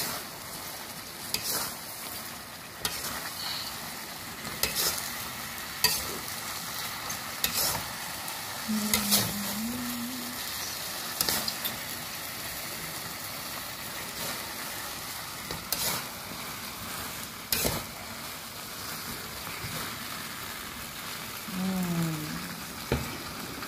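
Chicken pieces in sauce sizzling in a metal wok while a metal spatula stirs them, the spatula clicking and scraping against the pan every second or two.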